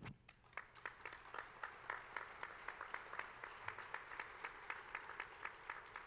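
An audience applauding, with one pair of hands standing out in a steady beat of about four claps a second.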